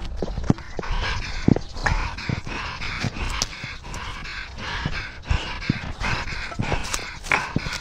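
Cat panting hard while running, heard close up through a camera worn on its collar. Quick breaths come in a steady run, with irregular low thumps from its strides jolting the camera.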